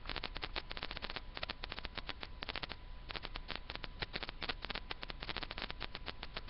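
Rapid, irregular clicking and crackling, many clicks a second, over a faint steady tone and low hum.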